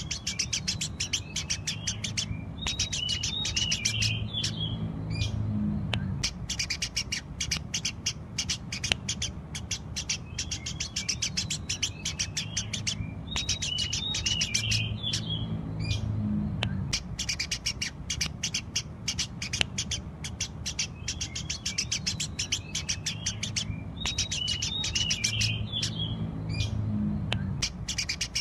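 Eurasian tree sparrows (burung gereja) chirping fast and continuously, many chirps a second, over a low hum. The same stretch of chirping comes round again about every ten seconds, as in a looped recording.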